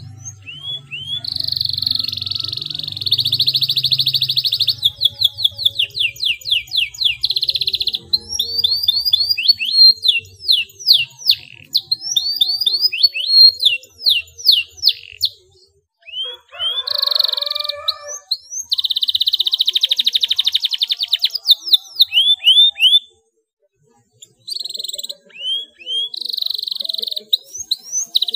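Domestic canary singing a fast rolling song: long trills and runs of quick sweeping notes in phrases, with short breaks between them and a full stop about 23 seconds in.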